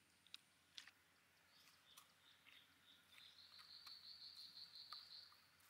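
Faint insect trill, a high, rapidly pulsing note that swells from about a second and a half in and fades near the end, with a few light clicks.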